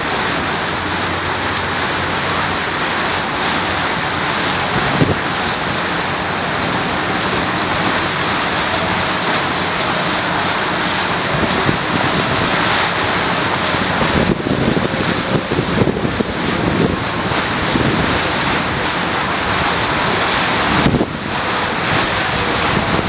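Steady rush of wind buffeting the microphone, over the wash of water from a moving boat on the lake, with rougher gusts in the second half.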